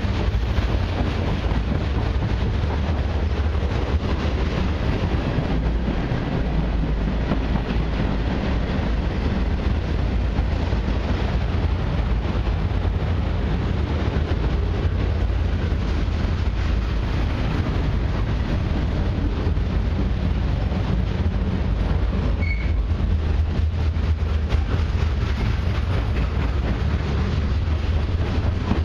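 Freight cars of a long CN mixed freight train rolling past close by: a steady rumble of steel wheels on rail. A brief high-pitched squeak comes about three quarters of the way through.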